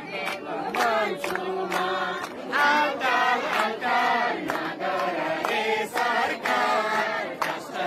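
A group of people singing a song together in the street, over a sharp steady beat of about two to three strokes a second.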